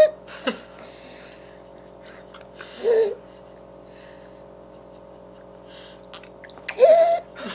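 Baby's silly gasps while drinking water: short high-pitched voiced gasps, one at the start, one about three seconds in and a louder rising one near the end, with softer breathy inhalations between.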